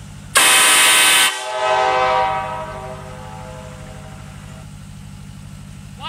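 Nathan Airchime K5LA five-chime locomotive air horn blown once on 120 psi, very loud for about a second, with its chord carrying on more quietly and fading out by about two and a half seconds. A steady low hum runs underneath.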